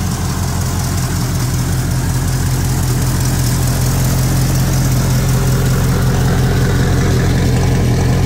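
Mustang circle-track race car's engine idling loudly and steadily through its side-exit exhaust, with an even pulsing beat.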